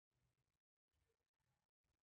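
Near silence: only faint, gated background noise.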